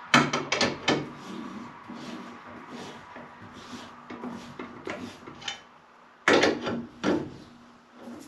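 Four-way cross lug wrench working chrome lug nuts onto the half-inch-20 studs of a van's rear spare-tire carrier: metal clanks and knocks. There is a cluster of clanks at the start, lighter ticking as the nut is turned, and another loud burst of clanks about six seconds in.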